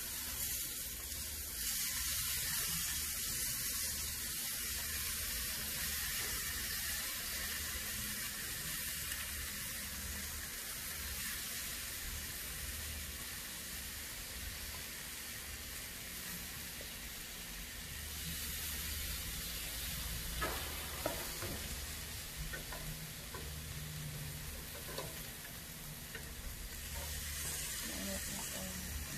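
Marinated chicken drumsticks sizzling on a barbecue grill, a steady hiss, with a few light clicks about two-thirds of the way through.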